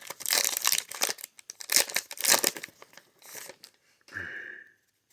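Foil Pokémon booster pack wrapper crinkling and tearing as it is handled and opened, in a run of rustles that thins out after about two and a half seconds.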